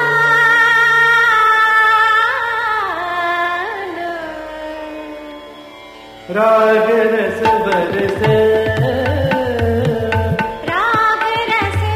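Indian classical music: a long held melodic note sliding between pitches fades away, then about six seconds in a new passage starts with tabla strokes under a melody.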